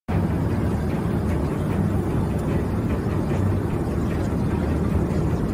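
Airliner cabin ambience: a steady low rumble of the aircraft, with faint passenger chatter.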